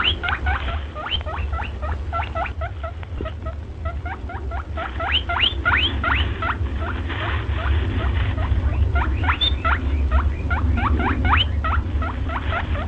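Pet rabbit making quick runs of short, high squeaks, each rising in pitch, several a second, over a steady low hum.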